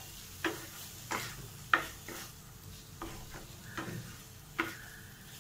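Wooden spatula stirring and scraping a corn and paneer filling around a non-stick frying pan, about eight separate scrapes and taps against the pan, over a faint sizzle of the frying masala.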